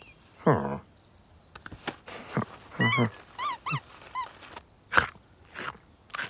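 Cartoon cat vocal noises: a falling mew-like grunt about half a second in, then grunts and a quick run of short squeaky chirps around three to four seconds. A few short, sharp rustles follow near the end as the cat paws at a small cloth bundle.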